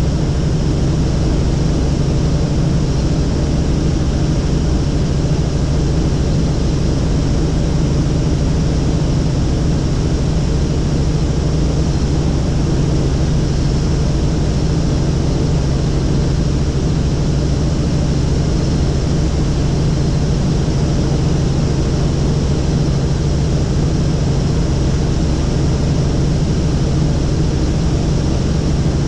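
Helicopter in flight, its engine and rotor making a steady, unbroken drone heard from inside the cabin.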